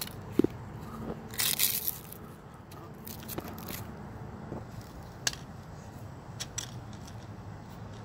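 Dead leaves crunching and crackling as they are crushed under a child's sandal sole on asphalt: scattered short crackles, with the longest and loudest crunch about a second and a half in.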